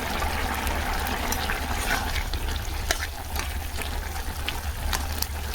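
Fish and spices, ginger and ground cumin, sizzling in hot oil in a pan: a steady hiss with scattered short clicks and scrapes of a spatula stirring, over a low steady hum.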